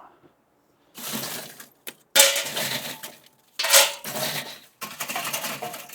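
Lumps of leftover lump charcoal clattering and clinking as they are scooped and dropped into a charcoal chimney starter, in four bursts.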